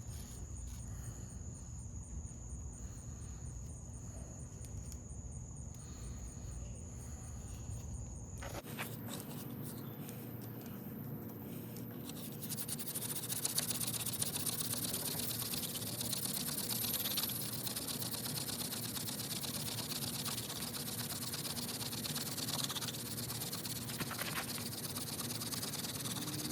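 Night insects calling steadily. At first one steady high trill is heard; about eight and a half seconds in it gives way to a denser, higher, fast-pulsing buzzing chorus.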